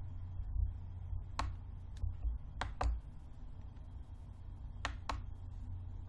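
Computer mouse buttons clicking: about five sharp clicks, two of them in quick pairs, as text is selected and copied through a right-click menu, over a low steady hum.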